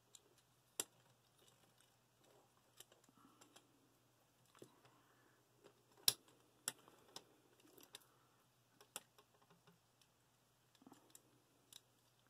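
Faint, scattered clicks and taps of plastic parts on a Transformers War for Cybertron Springer action figure as it is handled and transformed, the loudest snap about six seconds in.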